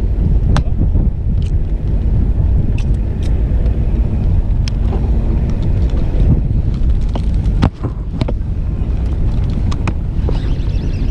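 Steady low rumble of wind buffeting the microphone aboard a small fishing boat, with the boat's engine running underneath. A few sharp clicks and knocks cut through, the loudest about eight seconds in.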